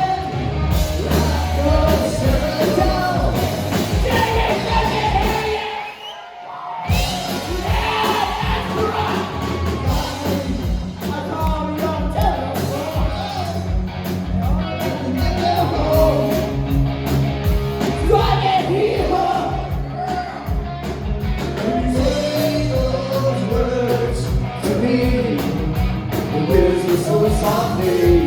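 Live rock band playing with a lead singer over a steady drum beat. The music stops dead for about a second around six seconds in, then the band comes back in.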